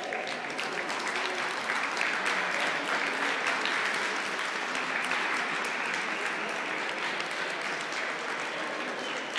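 Audience applauding, a steady patter of many hands clapping that is fullest a couple of seconds in and eases off near the end.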